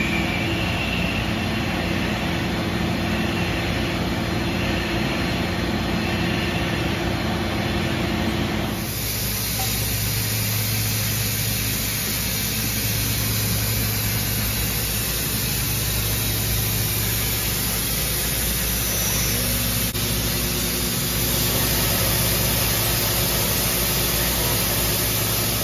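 A 5-axis CNC machining center running while it mills a mold core with a small end mill: a steady machine hum with a hiss and a few steady low tones. About nine seconds in the sound shifts abruptly to a stronger low hum.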